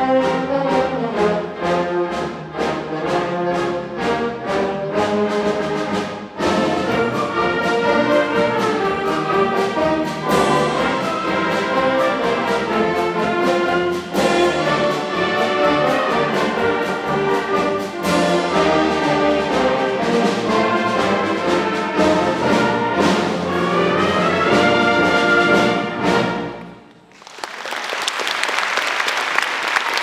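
Community concert band of brass and woodwinds playing the closing passage of a piece, ending about 27 seconds in. Audience applause starts right after the final chord.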